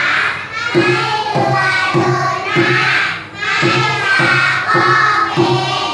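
A children's song with a sung melody over a steady beat of about two beats a second.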